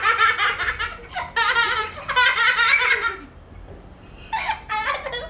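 Young children laughing in long, high-pitched runs, with a short break a little past the middle.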